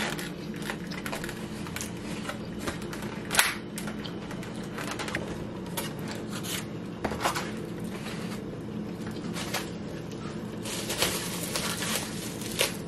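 Crinkling, tearing and clicking of plastic food packaging and takeout containers being handled and opened, in short scattered bursts over a steady low hum.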